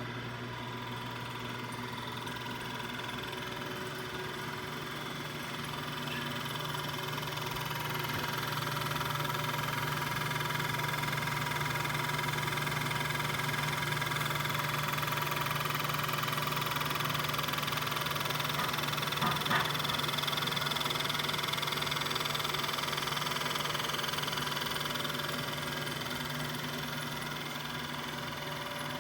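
Royal Master Gen X CNC profile grinder running: a steady machine hum with several whining tones. It grows louder about eight seconds in and eases off near the end, with a short click a little past the middle.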